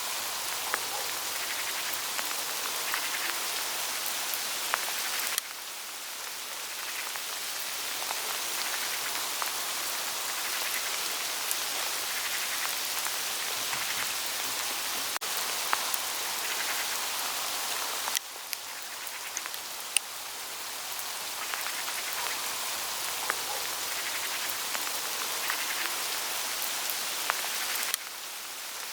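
Hail rustling through autumn forest foliage: a dense, steady hiss of small impacts on leaves, dotted with sharper ticks. The level drops suddenly three times and then builds back up.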